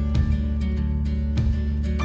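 Background music: a steadily strummed acoustic guitar over a sustained bass line with a regular beat.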